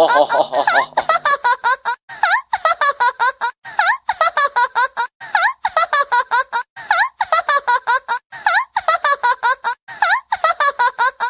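High-pitched cackling laugh sound effect, 'ha ha ha' repeated over and over in quick groups with short gaps, the ghostly laugh of a horror sound effect. A steady low hum under the first second or so fades out, and the laughter cuts off suddenly at the end.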